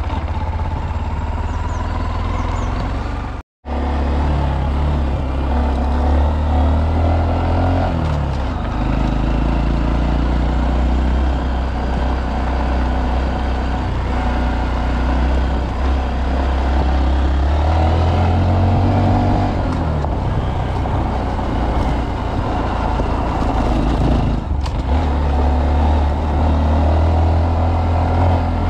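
Honda Monkey 125's single-cylinder four-stroke engine running while riding, its pitch rising and falling with speed. The sound cuts out for a moment about three and a half seconds in.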